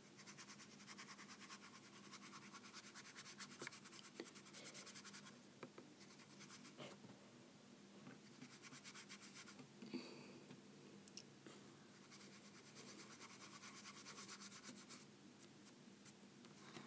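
Faint paintbrush strokes on paper: quick back-and-forth scrubbing as watercolour is worked in. It comes in three spells with short pauses between them, and a few light taps fall in the gaps.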